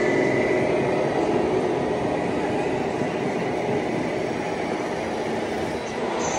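Radio-controlled scale lorry and low-loader trailer driving past: a steady mechanical running noise, with a faint whine that fades after about the first second.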